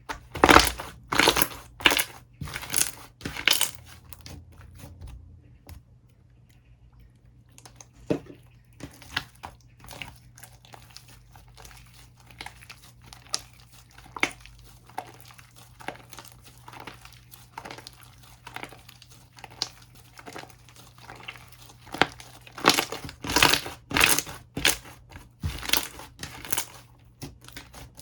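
Slime being squished and poked by hand, giving bursts of sharp crackling pops and clicks. These come in loud clusters at the start and near the end, with a brief lull and fainter steady crackling in between.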